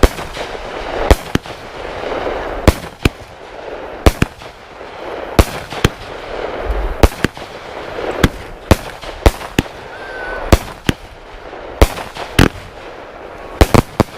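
A Legend Fireworks Matrix Power consumer cake firing: about twenty sharp, loud bangs, irregularly spaced and often in pairs, with a hissing crackle that swells between them.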